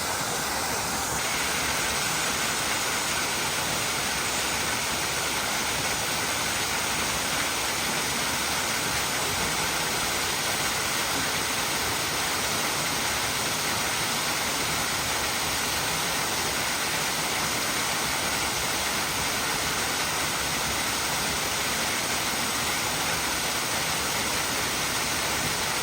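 Steady rush of a waterfall: water pouring over the rocks of Kilgore Falls, an even, unbroken noise.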